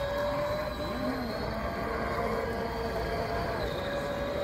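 Electric motor of a 1/10-scale RC pontoon boat whining steadily while the boat runs at speed, its pitch stepping down and up as the throttle changes, with a low rushing noise underneath.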